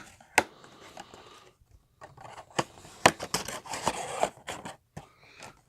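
A cardboard trading-card box being handled and opened: rustling and scraping with a few sharp clicks and taps.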